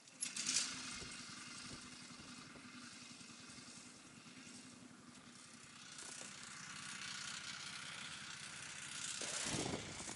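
Snowmobile engine starting up and running cold, not yet warmed up after sitting for an hour on the ice. It runs with a steady, fast pulsing note and is revved up louder near the end.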